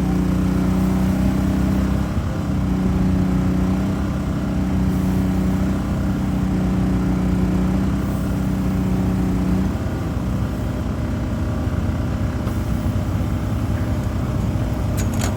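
Motor vehicle engine running at a steady speed with a constant low note, which drops away about ten seconds in, leaving a rougher low rumble.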